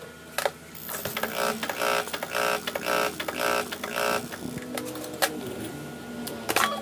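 Delphi diesel injector being pulse-fired on a test rig, a rhythmic buzzing pulse about twice a second for a few seconds, with a few sharp clicks around it.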